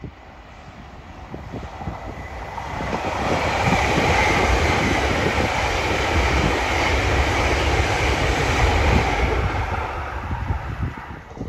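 Passenger train passing on the main line below: a rushing rumble that builds over about three seconds, stays loud for several seconds, then fades away near the end.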